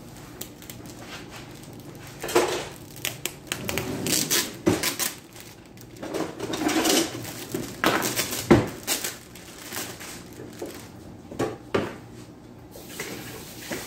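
Plastic bread bag rustling and crinkling in irregular bursts as a loaf is handled and pulled out of it.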